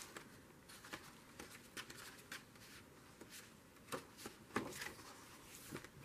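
Soft paper rustles and light taps of hardbound sketchbook pages being turned and the books handled, a few separate rustles with a slightly louder one about four seconds in.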